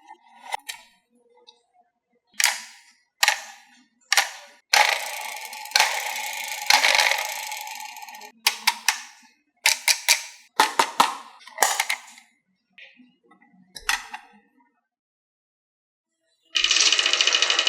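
Marbles running down a wooden HABA marble track: sharp clacks as they drop and hit the track pieces, with stretches of rolling in between. Near the end, after a short pause, a steady rattling starts abruptly.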